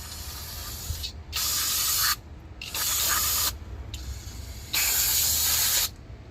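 Aerosol can of brake cleaner spraying in three bursts of about a second each, blasting dust and dirt off brake parts.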